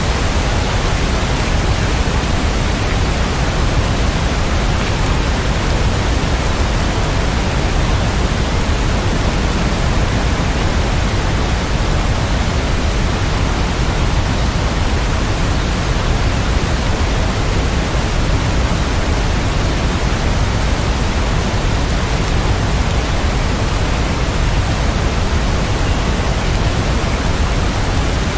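Continuous heavy rain as a dense, steady hiss with no separate drops or thunderclaps standing out.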